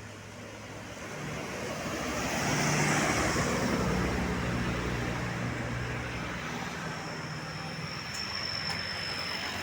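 A bus driving past: engine and road noise build to a peak about three seconds in, then fade.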